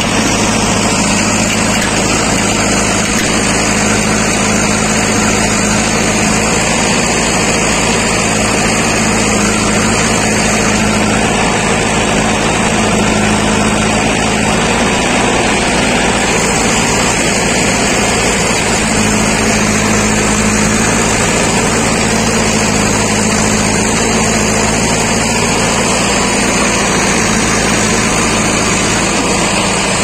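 Diesel engines of a JCB 3DX backhoe loader and a tractor running steadily, a constant engine note without breaks.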